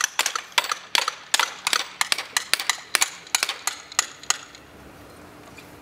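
Scattered hand clapping from a small group, several claps a second, dying away about four seconds in.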